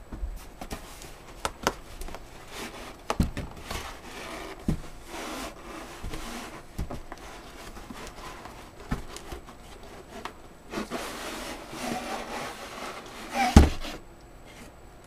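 Cardboard shipping box and its packaging being handled: flaps and cardboard inserts rubbing and rustling, with scattered knocks and one loud thump near the end.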